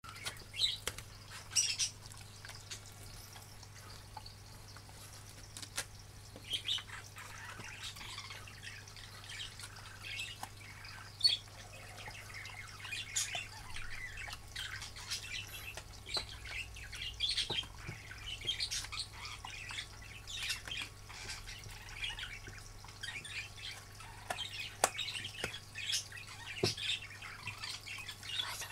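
Husky chewing a hard dog chew treat: irregular crunching, crackling and sharp clicks as its teeth work the chew, over a steady low hum.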